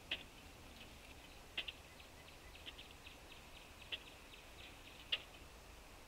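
Faint irregular clicks and taps from a pileated woodpecker's bill pecking at seed in a platform feeder: a few sharper taps spaced a second or more apart, with a quick uneven run of fainter ticks in the middle.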